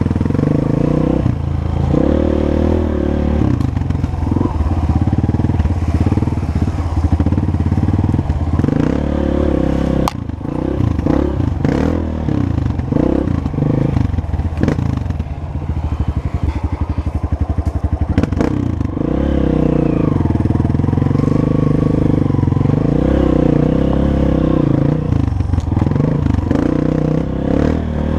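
Honda CRF230F dirt bike's single-cylinder four-stroke engine running on the move, the throttle opening and closing; it eases off briefly about ten seconds in and again for a few seconds past the middle.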